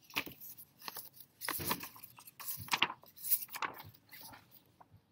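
Paper pages of a picture book rustling as the book is handled and turned to a page: a string of irregular crinkly rustles that fade out near the end.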